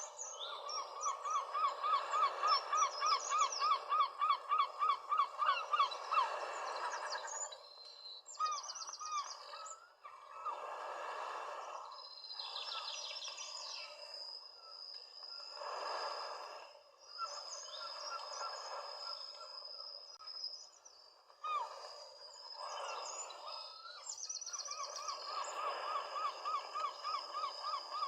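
Several birds calling and singing, with one bird repeating a quick note about five times a second for the first six seconds and again near the end. A thin high steady tone runs through the second half.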